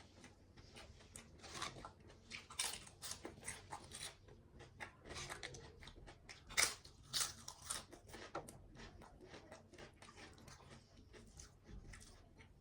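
A person chewing and biting food, with many irregular crunchy clicks, thickest and loudest through the middle stretch.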